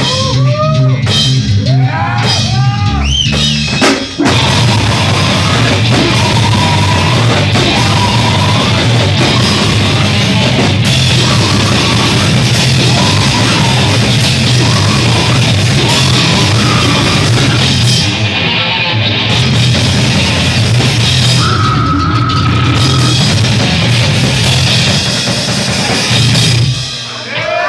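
Live band playing loud heavy music on drum kit and electric guitar. A lighter opening of about four seconds gives way to the full band at full volume, which stops abruptly about a second before the end.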